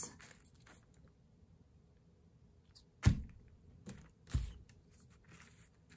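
Two sharp knocks about a second and a half apart, with a lighter tap between, as a plastic glue bottle and a paintbrush are handled on a craft table; otherwise only faint handling noise.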